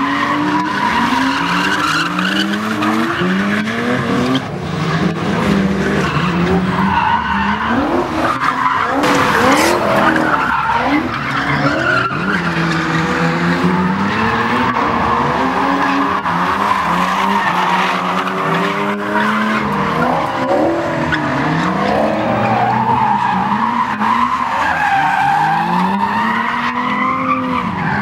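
Drift cars' tyres squealing steadily as they slide, while the engines rev up and down over and over on and off the throttle, with one sharp crack a little past the middle.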